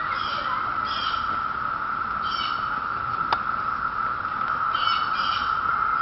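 Chorus of periodical 17-year cicadas: a steady, even drone. Short high chirps cut in several times over it, and there is a single sharp click about three seconds in.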